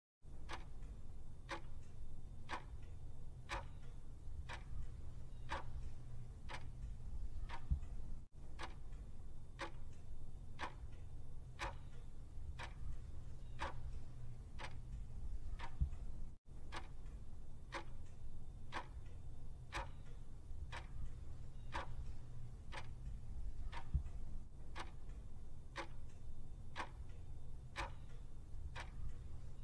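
Ticking-clock sound effect for a quiz countdown timer: steady, evenly spaced tick-tock over a low, steady hum, marking the seconds left to answer.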